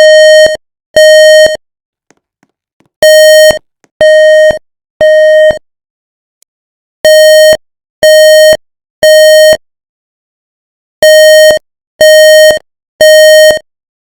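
Building fire alarm sounding the temporal-three evacuation signal: loud, buzzy half-second beeps in groups of three, each group followed by a pause of about a second and a half, repeating about every four seconds.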